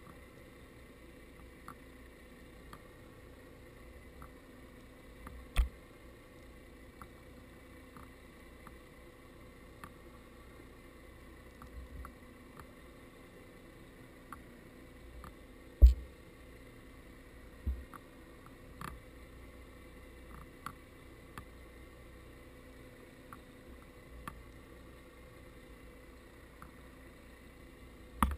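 Underwater sound picked up by a GoPro in its waterproof housing on the seabed: a faint steady hum with many small scattered clicks, and a few dull thumps, the loudest about sixteen seconds in.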